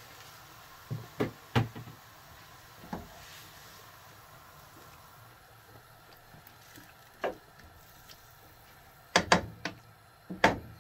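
Wooden spatula knocking against a wok while stirring vegetables in sauce: a few sharp knocks about a second in, single knocks later on, and a quick cluster near the end.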